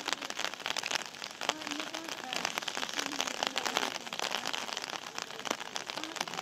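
Steady rain falling on hard ground and surfaces, with many sharp drops close by.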